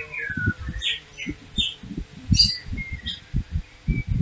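Small birds chirping and twittering in short, high calls, some gliding down in pitch, over a run of irregular low thumps.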